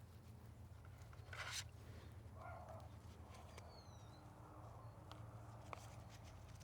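Quiet handling noises: a short rustle about a second and a half in, a softer one a second later and a couple of faint clicks, over a steady low hum.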